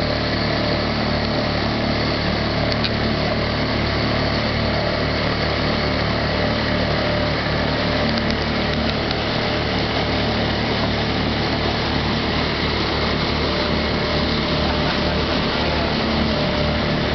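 A small motorboat's engine running steadily, an even hum with no rise or fall in pitch.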